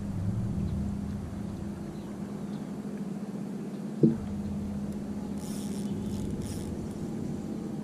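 Steady drone of a boat engine running at an even pitch, with a single sharp knock about four seconds in.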